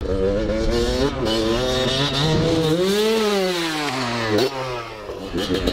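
Dirt bike engine revving: its pitch climbs to a peak about three seconds in, then falls away as the throttle comes off.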